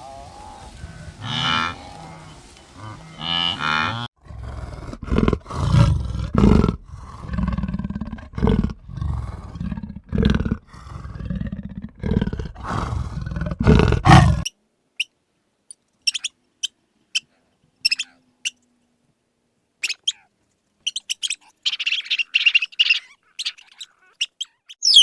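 Animal calls in three parts. First a pitched mooing call, then about ten seconds of deep, loud, pulsing roars or bellows from a large animal, which stop abruptly. After that come faint, scattered high chirps and clicks.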